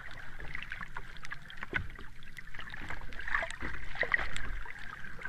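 Water ambience sound effect: gentle sloshing and bubbling, with many small scattered clicks and pops.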